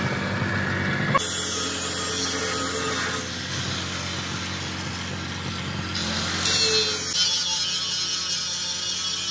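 A power tool running on steel, a continuous hissing noise over a steady low hum, its sound changing abruptly several times.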